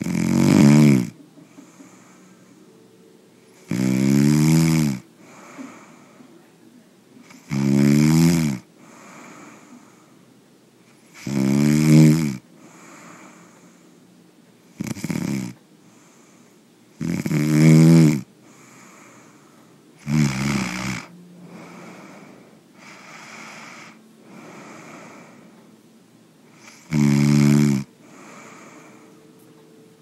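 A person snoring: eight loud snores, each about a second long, coming every three to four seconds, with a gap of about six seconds before the last one.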